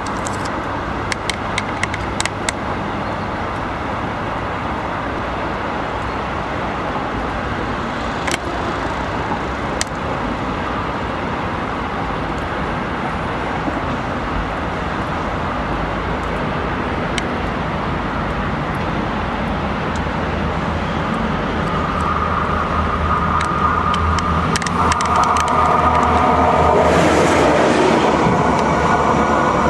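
Two converted diesel railbuses running together as a work train through a yard: a steady rumble with scattered sharp clicks, growing louder toward the end as a pitched engine drone comes in.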